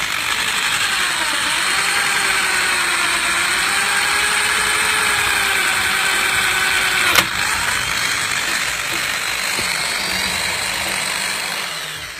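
Power drill boring into a Renault van's cast-iron brake disc with a TTP HARD drill bit and metal-cutting paste: a steady motor whine that wavers in pitch as the bit cuts, with one sharp click about seven seconds in. The drilling dies away near the end.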